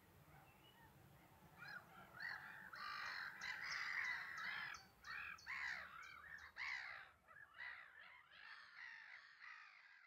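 Black-headed gulls calling, many repeated calls overlapping. They begin faintly about a second and a half in, are loudest around the middle and thin out near the end.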